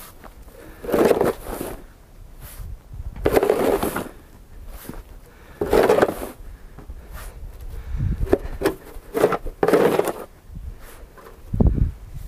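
Snow shovel scraping and pushing snow along the ground, in strokes about every two and a half seconds, then shorter scrapes and a low thump near the end.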